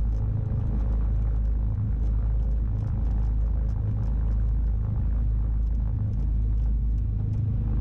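Twin piston engines of a Cessna 310 running at low taxi power, heard from inside the cockpit: a steady low drone that swells and fades slowly as the two engines beat against each other.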